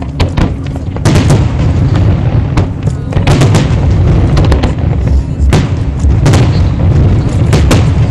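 Aerial firework shells bursting in quick succession: a dozen or so sharp cracks over a continuous low rumble of booms.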